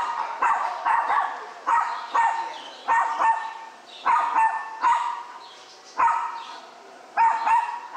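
A dog barking over and over, short sharp barks about one or two a second, with a brief pause near the end before two more barks.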